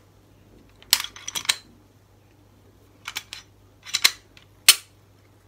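Glock 21 Gen 4 pistol being reassembled: the slide is fitted onto the frame and worked by hand, giving a series of sharp metallic clicks and clacks, a quick cluster about a second in, more around three and four seconds, and the sharpest single click near the end.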